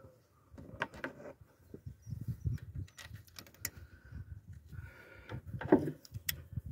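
Scattered light clicks and knocks as hands handle metal parts around a diesel engine's high-pressure fuel pump, with a sharper knock a little before the end.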